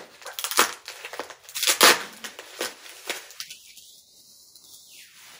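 Bubble wrap being pulled off and crinkled by hand: a run of sharp, crackly rustles over the first two seconds, then quieter handling that dies down near the end.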